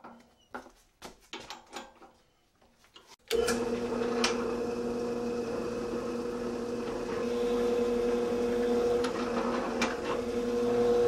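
A few light clicks and knocks as a Forstner bit is fitted into a drill press chuck, then about three seconds in the drill press starts suddenly and runs with a steady hum while the Forstner bit bores into a wooden disc.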